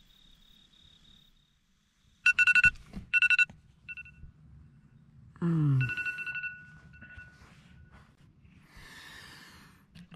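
Crickets chirping in a steady, fast pulse, then after a brief silence a smartphone alarm sounds in loud repeated two-tone electronic beeps: two bursts, a short one, then a softer held tone. A short low falling groan comes with the alarm's later tone.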